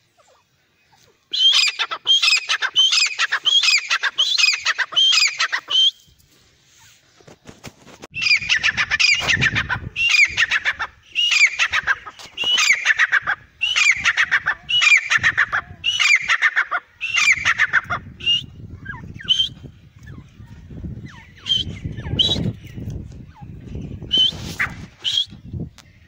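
Grey francolin calling: loud, high-pitched notes repeated about once a second in two runs, with a pause about six seconds in, then fewer scattered notes. A low rumble runs under the later calls.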